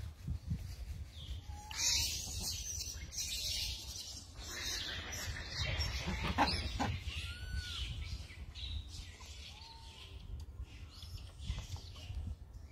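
A few short, soft animal calls, each rising and falling in pitch, spaced several seconds apart, over bursts of rustling noise and a low rumble.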